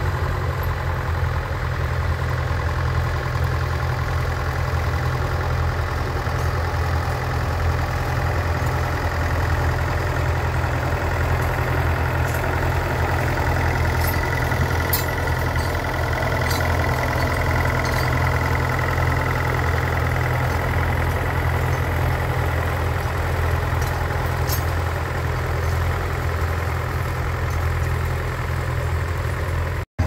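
Nuffield tractor engine running steadily at low revs while pulling a plough, a constant low engine note throughout.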